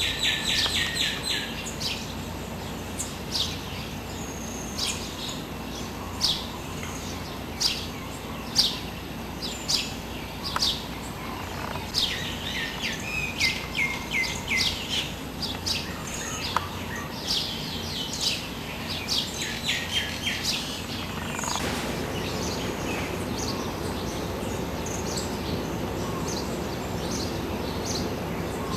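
Songbirds chirping and calling: many short, sharp high notes and quick rattling trills. About 21 seconds in, the calls thin out and a steady low background noise grows louder.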